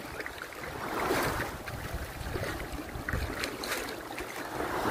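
Shallow seawater lapping and sloshing in gentle swells, with wind noise on the microphone.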